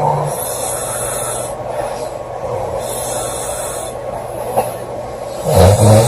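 A girl snoring loudly: steady hissing breath, then one loud, low snore about five and a half seconds in, over a steady low hum.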